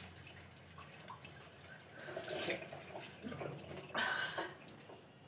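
Water from a tap running into a wash basin, with two louder noisy bursts about two and four seconds in.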